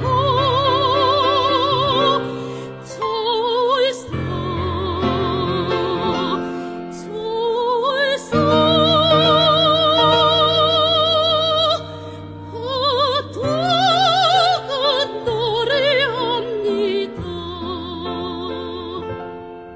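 Soprano singing a Korean art song in classical style with wide vibrato on long held notes and upward swoops between them, over piano accompaniment; the voice ends just before the close.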